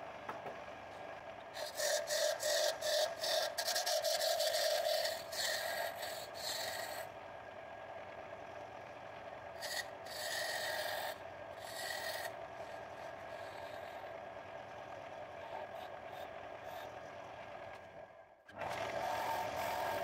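Wood lathe running steadily while a hand-held turning tool cuts into the spinning wooden blank, roughing it out and tapering it down. The cutting comes as scraping, shaving bursts, a long one early, a shorter one about halfway through, and another near the end.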